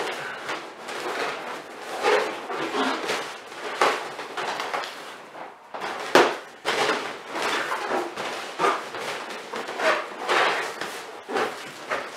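Large inflated latex balloons rubbing and bumping against each other in irregular bursts as they are pushed and twisted together into a cluster.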